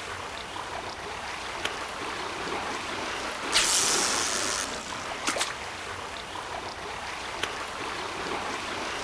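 Steady sea-water and wind noise, with a louder rushing surge lasting about a second, three and a half seconds in, and a few faint clicks.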